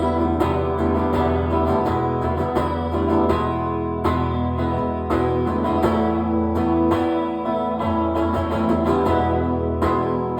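Live band playing an instrumental passage led by strummed guitar over a sustained low end, with no vocals.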